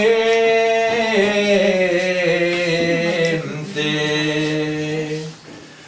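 A man singing an improvised verse of Tuscan ottava rima unaccompanied, drawing out the end of a line ("…per la mente") in long held notes that slowly fall in pitch. He stops shortly before the end.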